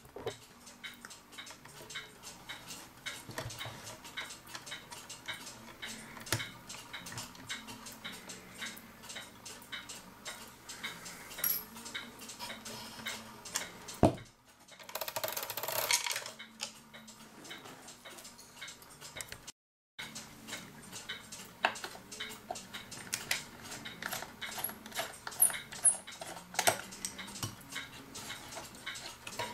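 Light metallic clicking and clinking of a cuckoo clock's brass chains and hooks being handled and pulled through the case, over a steady ticking. A sharp click about halfway is followed by a couple of seconds of rustling.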